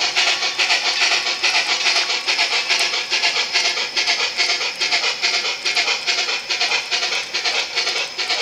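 Model freight cars rolling past on model railroad track: a steady, quick, even clatter of metal wheels on the rails.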